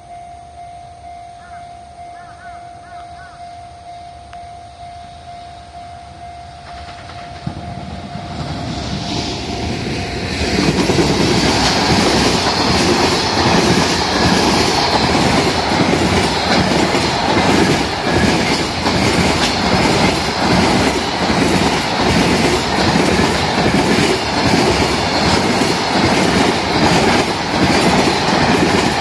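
A freight train hauled by an EF210 electric locomotive approaches and passes close by, as a level crossing's warning bell rings with a steady tone. The train's noise swells from about eight seconds in, then the container wagons' wheels clatter loudly and rhythmically over the rail joints.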